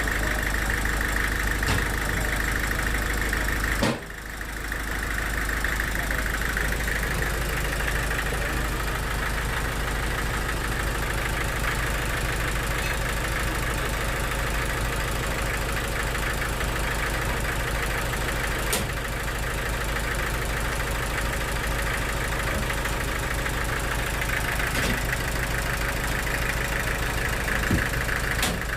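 An engine running steadily, with a brief drop in sound about four seconds in.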